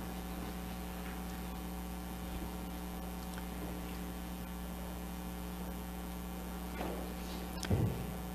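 Steady electrical mains hum in the sound system, with one brief low thump near the end.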